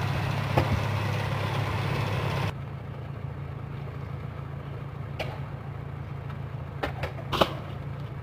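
Steady low hum with outdoor background noise, which drops to a quieter hum about two and a half seconds in. Near the end come a few sharp clacks of a stunt scooter's deck and wheels hitting concrete.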